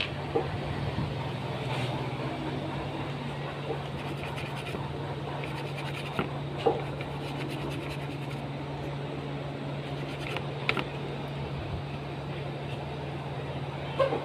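Steady low hum of repair-bench equipment, with a few sharp clicks and taps of tools on a laptop motherboard.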